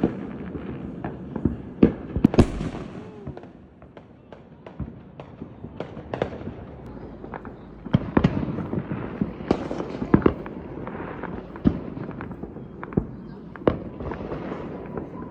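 Fireworks going off: irregular sharp bangs and pops, some in quick clusters, with a brief lull about four seconds in.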